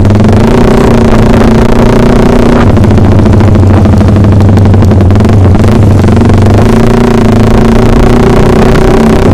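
Yamaha R15's single-cylinder engine running loud through a Proliner TR1 aftermarket racing exhaust, a steady note that shifts about three seconds in and settles back near seven seconds.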